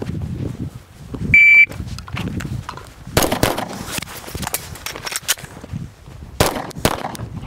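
A shot timer's start beep, then pistol shots: a draw and two quick shots about two seconds later, a pause of about three seconds for an emergency magazine change, and two more shots. The shots crack sharply with a short echo over the range.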